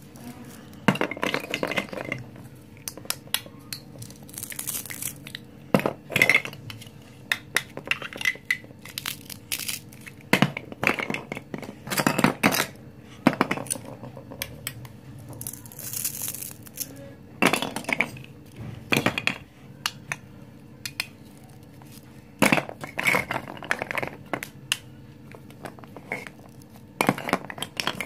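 Hollow plastic toy fruit and vegetable pieces clattering, clicking and knocking against each other and the wooden tabletop as they are handled, in irregular clusters of taps, with a couple of brief rustles.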